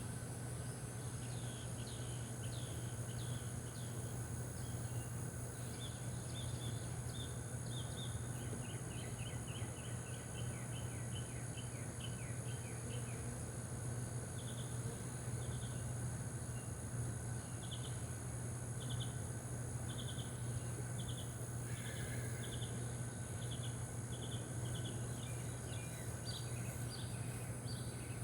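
Outdoor rural ambience: a steady insect drone and a steady low hum, with runs of short chirps. The chirps come in quick series about a third of the way in, then repeat about once a second through the second half.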